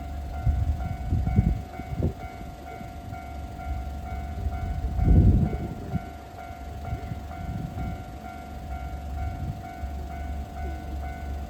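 Japanese railway level-crossing alarm ringing in a steady, evenly repeating pattern, over the low rumble of a diesel-hauled freight train, which swells loudly about a second in and again about five seconds in.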